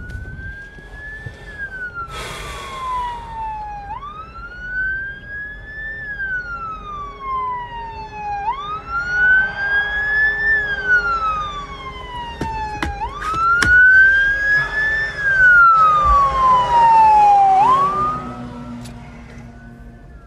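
A siren wailing, each cycle rising quickly in pitch and then falling more slowly, repeating about every four and a half seconds. It is loudest about three-quarters of the way through, and two sharp clicks sound about thirteen seconds in.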